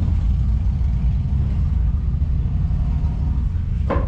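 Wind buffeting the microphone: a loud, unsteady low rumble, with a brief knock just before the end.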